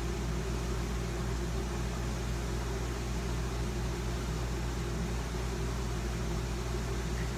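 Steady room background noise: a low mechanical hum under an even hiss, unchanging throughout.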